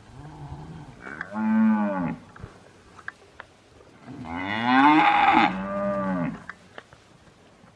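Santa Gertrudis cattle mooing: two long moos, each rising and then falling in pitch, the second, a little after midway, louder than the first.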